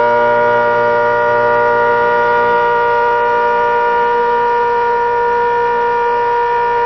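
ACA Hurricane 130 outdoor warning siren sounding a steady tone of several pitches held together, neither rising nor falling.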